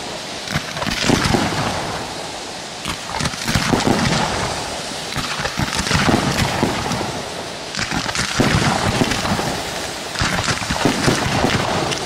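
Bolognese-style fireworks battery firing: dense, rapid bangs and crackling from ground-fired fountains and bursts, coming in waves that swell every two to three seconds.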